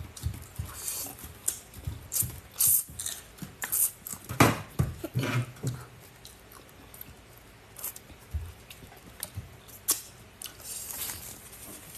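Close-miked chewing and mouth sounds while eating, with frequent short crisp clicks and crunches, busiest in the first half and sparser after about six seconds in.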